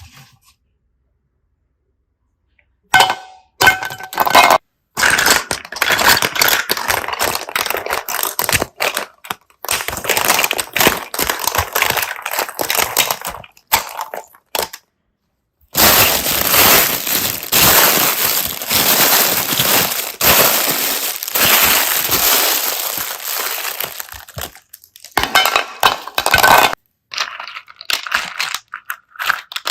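Close-miked crunching and crackling of slime being squeezed and worked by hand, in several long takes broken by sudden silent cuts.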